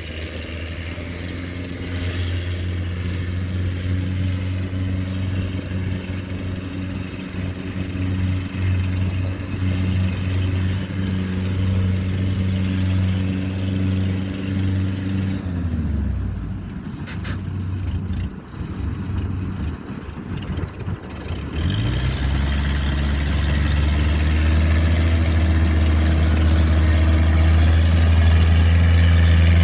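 Kubota DC70 combine harvester's diesel engine running steadily under working load. About halfway through the engine note drops away for several seconds, leaving a rougher rumble with a single click, then it revs back up and runs louder.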